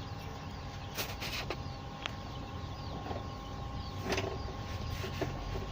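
Steady hum of a Launch CNC-602 fuel-injector tester and cleaner, with a few light clicks and knocks about a second in and again near four seconds.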